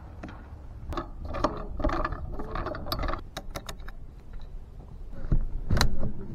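Clicking and clattering of metal and plastic parts being handled as a parasol vise is tightened around an umbrella pole with clamp knobs and a wing nut, with a louder knock near the end.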